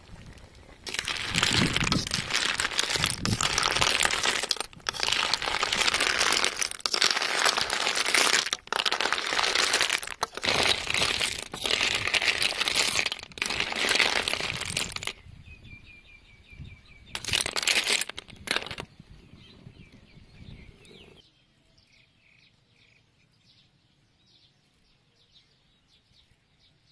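Snails in their shells cooking in a wok, a loud crackling sizzle and bubble in several stretches broken by sudden cuts. Birds chirp faintly after about fifteen seconds, and the last few seconds are near silence.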